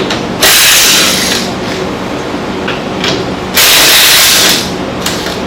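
Two sharp hisses of about a second each, some three seconds apart, like short blasts of spray or air, over a faint steady hum.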